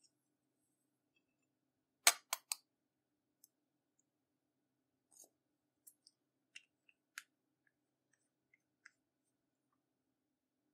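Clear slime being handled, giving a quick run of three sharp clicks about two seconds in, then scattered fainter clicks and pops.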